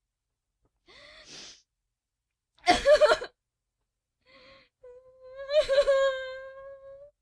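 A woman crying: a faint breath in, a loud sobbing gasp, then a long wailing cry held on one steady pitch.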